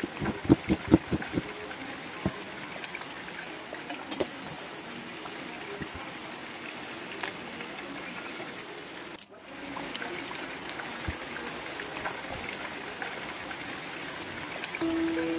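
A knife chopping on a plastic cutting board, a quick run of about eight strikes, then a steady hiss of rain. Music comes in near the end.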